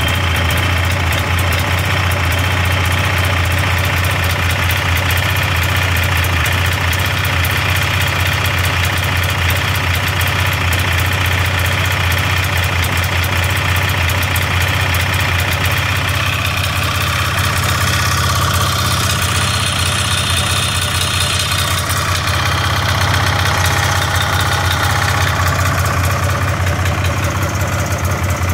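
1999 Polaris Indy Trail Touring's 488 fan-cooled two-stroke twin running rough, starving for fuel even with a freshly rebuilt fuel pump. The owner likens the sound to running it dry with the fuel petcock shut.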